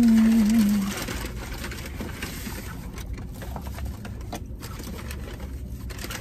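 A woman's long held vocal note, steady in pitch, wavers and drops as it ends about a second in. After it come only small clicks and rustles over a faint low rumble in a car's cabin.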